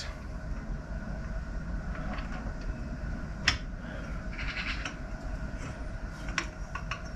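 Hand tools worked on a seized brake-caliper bolt, a long bar levered on a socket: a few sharp metal clicks, one about halfway through and a couple near the end, with some scraping. A steady low rumble runs underneath.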